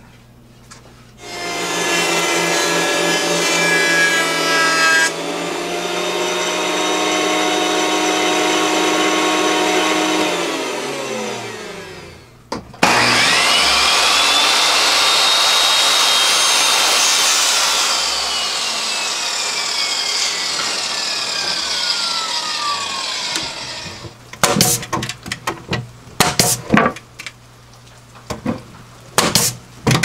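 Table saw run twice. Each time the motor starts, runs steadily through a cut in wood, and winds down with a falling pitch after it is switched off; the second run-down is long and slow. Sharp wooden knocks and clatter near the end as boards are handled.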